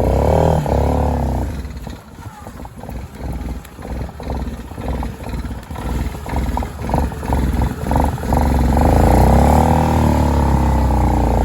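ATV engine in four-wheel drive with the differential locked, revving hard, then running unevenly at low revs in short chugging pulses for several seconds, then revving high and steady again from about three quarters of the way in, working under load through mud and water.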